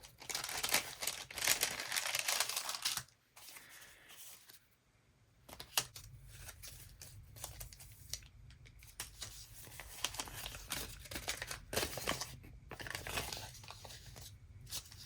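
Glassine paper bag crinkling and rustling as it is handled and opened, with paper ephemera shuffled inside. The rustling is loudest in the first three seconds, stops briefly, then returns as softer rustles and light taps.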